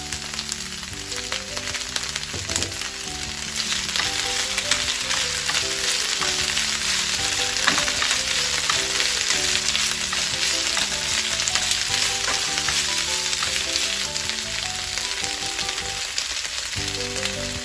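Chopped komatsuna sizzling and crackling in hot sesame oil in a frying pan as it is stir-fried, the sizzle getting louder a few seconds in. Background music plays underneath.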